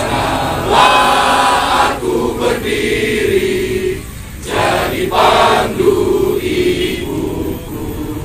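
A large group of people singing together in unison, in phrases of a second or two with short breaks between them.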